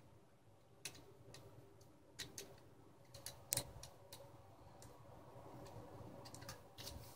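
Faint, irregular clicks and taps of small plastic parts as a toy's eye mechanism is handled and turned in the hands, about a dozen in all, bunched in the first half and again near the end.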